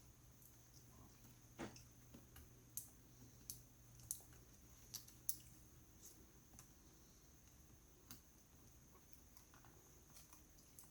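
Near silence broken by faint, scattered light clicks and taps, mostly in the first half, as small cables and parts are pushed into place inside an opened laptop.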